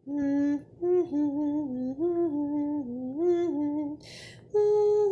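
A woman humming a short tune, the notes stepping up and down every half second or so, ending on a long held note. A brief hiss sounds about four seconds in, in a gap in the tune.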